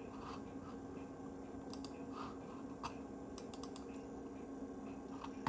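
Computer mouse button clicks, a few scattered single clicks and a quick cluster midway, over a steady low hum.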